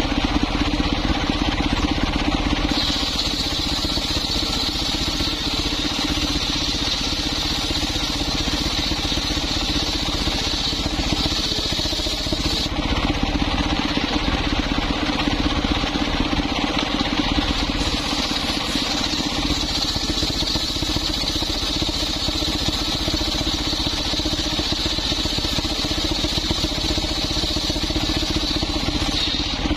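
Engine-driven circular saw bench running steadily while its blade rips coconut-trunk planks. A high cutting whine sets in about three seconds in, drops out briefly near the middle between cuts, and comes back until just before the end.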